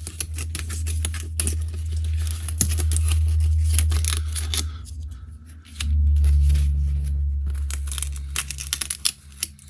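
Crackling, tearing and snapping of 3D puzzle pieces being pressed out of their foam-board sheets, many quick clicks in a row. A steady low rumble runs underneath, fading out about halfway through and returning soon after.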